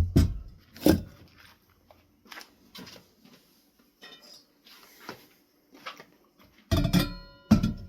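Clicks and knocks as metal ceiling fan parts are handled and set down, ending in a short clatter with a brief metallic ring.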